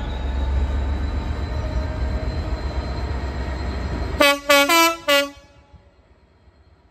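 Train rumble, then about four seconds in a train horn sounds four short blasts, alternating between two notes, over about a second.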